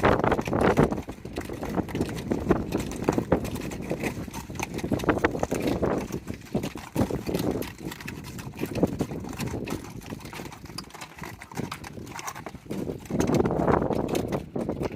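Mules' hooves clopping on the trail as a mule string walks past, in uneven steps, louder at the start and again near the end.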